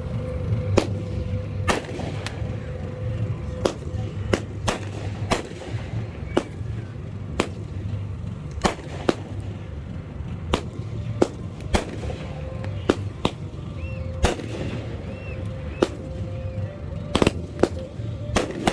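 Fireworks going off: a long run of sharp bangs at irregular intervals, roughly one or two a second, over a steady low rumble.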